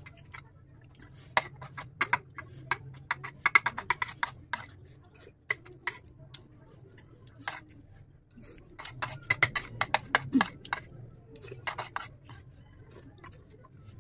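Metal spoon clinking and scraping against a ceramic plate while eating rice and curry, in two runs of quick clinks, one starting about a second in and another about nine seconds in, over a faint steady low hum.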